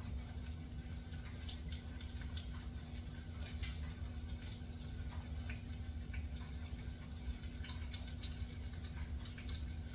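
Chicken wings deep-frying in hot oil: a steady sizzle with many small scattered crackles and pops.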